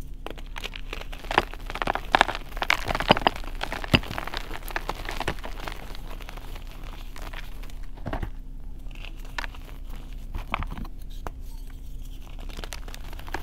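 Blocks of reformed gym chalk crunching and crumbling as fingers press and break them into powder. A dense run of crackling crunches comes a second or two in, then sparser crumbling.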